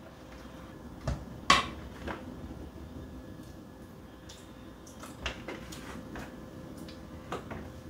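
A spoon knocking and scraping against a stainless steel saucepan while stirring a thick cheese sauce, with a few sharp clicks, the loudest about one and a half seconds in.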